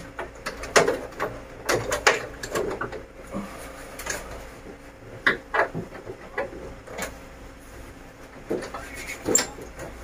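Irregular plastic clicks and knocks from the front cover of a split air-conditioner indoor unit being worked loose from its clips at the top.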